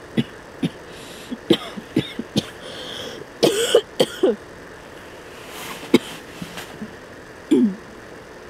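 A woman coughing in a fit: a string of short coughs, densest a little past three seconds in, with one more cough near the end.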